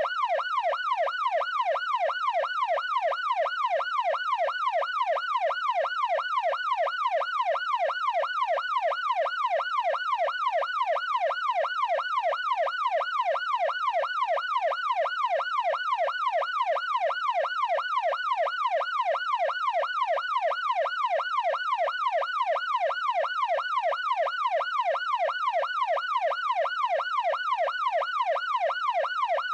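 Police car siren in a fast yelp: one steady tone sweeping rapidly up and down, about two to three sweeps a second.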